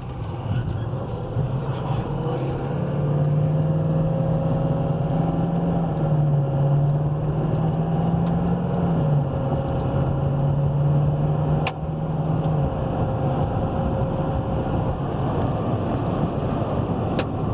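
2017 Chevy Silverado 3500 wrecker heard from inside the cab while driving: a steady low engine drone over road and tyre noise, the drone shifting pitch a little and fading about thirteen seconds in.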